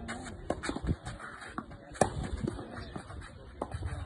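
Tennis being played on a clay court: sharp, irregular knocks of racket hitting ball and shoes on the clay. The loudest hit comes about two seconds in.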